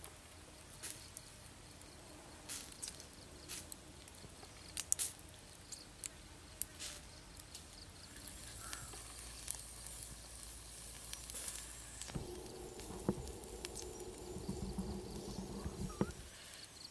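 Wood fire crackling with scattered sharp pops under a pig head roasting on a stick. A low steady hum joins about twelve seconds in and stops shortly before the end.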